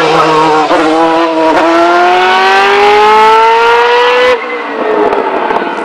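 An open-wheel single-seater race car's engine accelerating hard out of a hairpin, its pitch climbing steadily in one long pull for about three seconds. About four seconds in, the sound cuts abruptly to a lower, duller engine note from a car further up the road.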